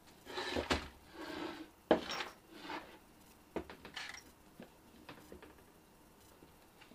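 Handling noises on a workbench: a wooden pole with a PVC tee fitting knocked and slid onto a wood block. Scrapes and rustling come in the first two seconds, followed by a few sharp clicks and light knocks.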